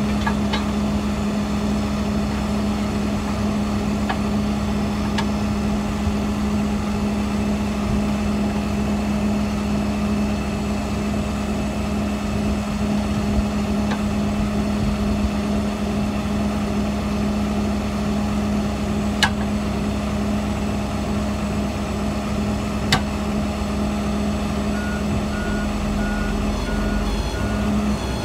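A heavy truck engine running steadily at a constant pitch, with two sharp clicks in the second half and a short run of beeps near the end.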